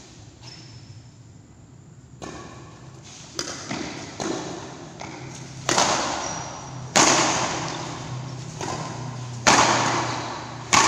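Badminton rackets striking the shuttlecock in a rally: about eight sharp hits at uneven spacing of a second or so, the loudest in the second half, each ringing on in the echo of a large hall. A low steady hum runs underneath.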